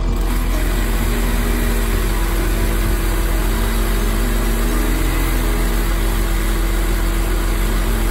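Bucket truck's engine running steadily at idle, a constant low hum with a slightly wavering drone over it.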